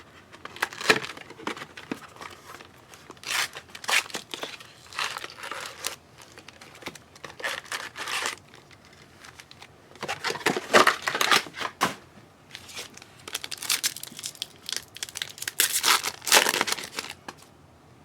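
Wrappers of Panini Prizm football trading card packs being torn open and crinkled by hand, in repeated bursts of rustling and tearing with short pauses between.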